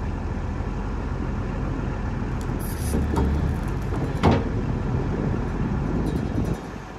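Kobelco SK250LC excavator's diesel engine running steadily while the long-reach arm and bucket are worked hydraulically, with two sharp knocks about three and four seconds in. The engine sound drops away near the end.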